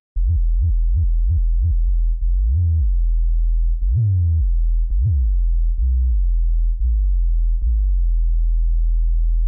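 Electronic synthesizer bass holding a deep note, opened and closed by a filter in short stabs. A quick run of six even stabs is followed by slower swells that rise and fall in brightness, then more stabs.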